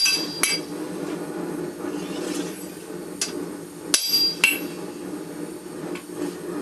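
Hand hammer blows on the steel sword blank against the anvil: about five separate ringing strikes, two close together at the start and three more after three seconds, over a steady low hum.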